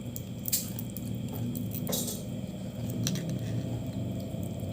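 Small clicks and clinks of eating a crab meal, with crab shells and tableware handled. A few sharp clicks come about half a second, two seconds and three seconds in, over a low steady hum.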